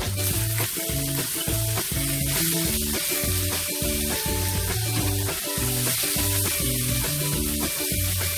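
Stir-fry of pork and mushrooms sizzling in oil in a frying pan as it is stirred, a steady hiss. Background music plays under it.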